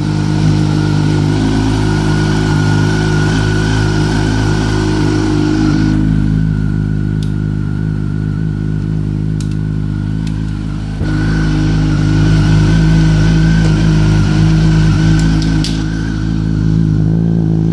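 2004 Yamaha R1's 998 cc inline-four idling steadily through Micron exhausts, running cold just after a start following a month of sitting. The note gets suddenly louder about eleven seconds in.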